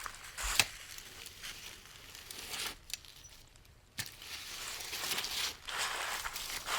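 Rustling and crinkling of clothing and gear being handled as people move about, with a sharp click about half a second in and a sudden change in the rustling about four seconds in.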